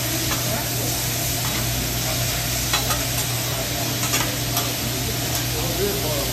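Vegetables sizzling on a hibachi flat-top griddle as they are stirred and tossed with a metal spatula, with a few sharp clicks of the spatula against the steel plate midway through.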